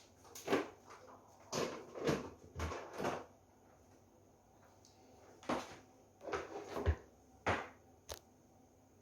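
A string of short knocks, clatters and scrapes as kitchen containers and utensils are handled, with a quiet pause of about two seconds in the middle.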